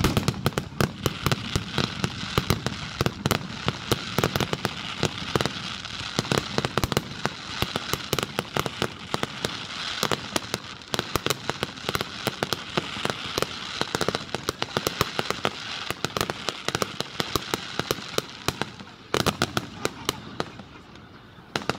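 Aerial fireworks shells bursting in a rapid, unbroken barrage: many sharp pops and bangs over a continuous dense crackle, easing off in the last couple of seconds.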